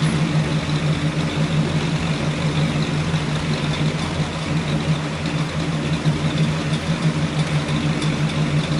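Car engine fitted with an aftermarket camshaft, headers and exhaust, idling loudly with an uneven, pulsing beat; the speaker calls it "nasty".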